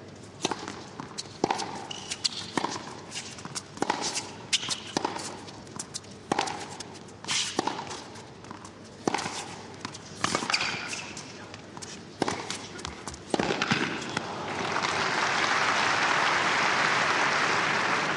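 Tennis rally: a ball struck back and forth by rackets and bouncing on the court, a sharp hit about every second. About fourteen seconds in the rally ends and the crowd applauds the point.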